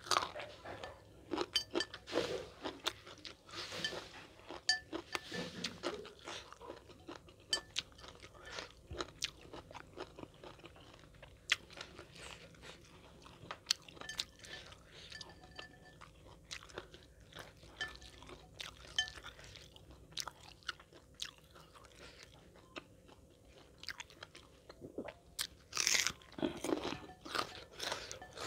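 Close-miked crunching and chewing of food, with irregular sharp crunches and a louder burst of crunching near the end.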